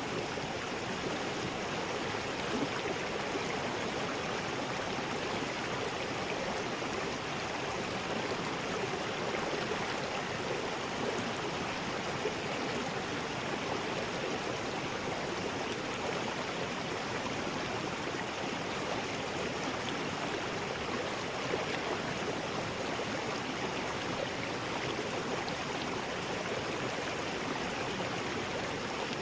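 River rapids rushing steadily, an even churning of fast water over rocks.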